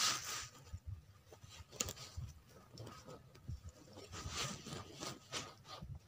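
Faint, irregular rustling and scraping: handling noise from the hand gripping the spinning rod close to the microphone.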